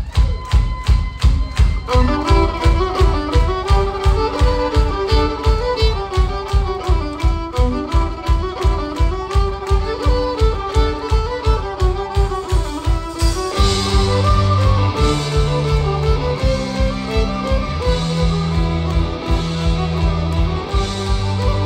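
Folk-punk band playing live, instrumental: a steady kick-drum beat with a fiddle melody coming in about two seconds in, then bass guitar and the full band with cymbals joining about two-thirds of the way through.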